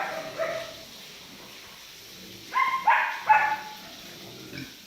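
Short, high-pitched animal cries: one at the start, then three in quick succession about two and a half seconds in.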